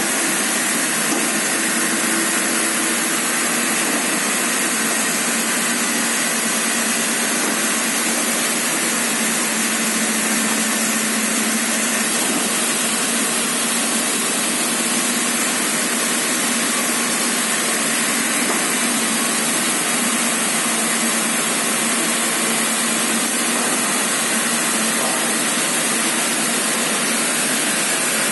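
Vertical sawmill running steadily and sawing through wood, a constant loud hiss of cutting over a steady motor hum.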